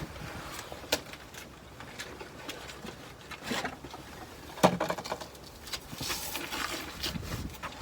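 Scattered light clicks, rustles and knocks of parts being handled during an oil change, with one sharper knock a little past halfway.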